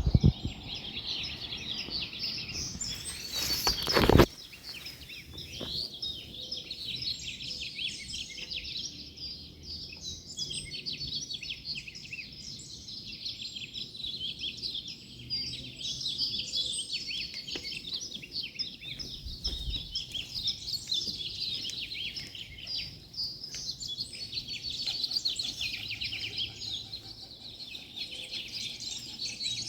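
Many birds singing and chirping at once in a pre-sunrise dawn chorus. About four seconds in, a loud rush of noise builds for about a second and cuts off suddenly.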